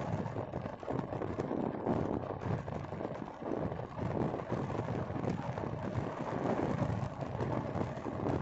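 Road and wind noise from a vehicle driving along a highway, with wind gusting on the microphone.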